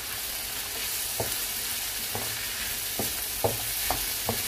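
Onions, green peppers and sliced olives sizzling in a frying pan as a wooden spoon stirs them; the spoon strikes the pan in short strokes about once a second.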